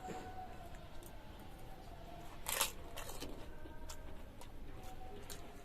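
A crisp phuchka (pani puri) shell crunching, loudest about halfway through with a smaller crunch just after, amid light clicks of handling food over a faint steady hum.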